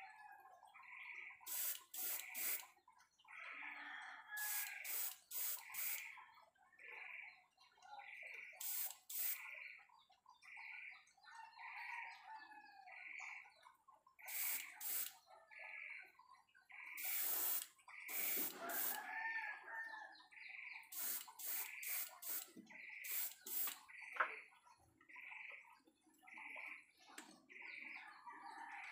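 Airbrush spraying acrylic paint in short hissing bursts, several times. Behind it a high chirp repeats about once a second, and chickens cluck.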